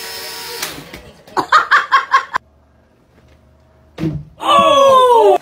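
A toy quadcopter drone's steady motor whine that cuts off, then a short burst of laughter. Near the end comes the loudest sound, a long cry falling in pitch.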